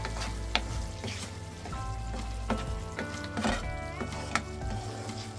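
Background music over tomato and onion sauce sizzling in a frying pan on high heat. A wooden spoon stirs it, with a few sharp scrapes and knocks against the pan, one of the loudest about three and a half seconds in.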